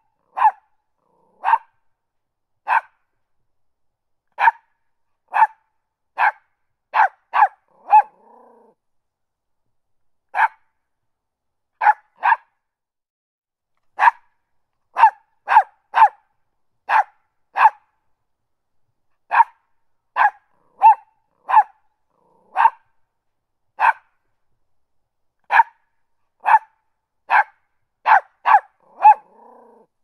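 Small West Highland white terrier puppy barking over and over in short, sharp, high yaps. They come in quick runs of two to four, with pauses of a second or two between runs.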